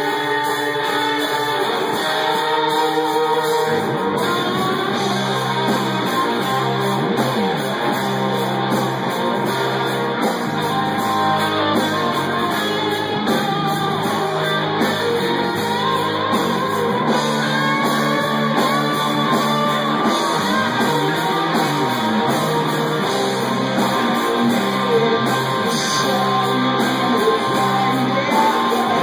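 Rock band playing live: electric guitars and drums with singing. Low bass notes come in about four seconds in.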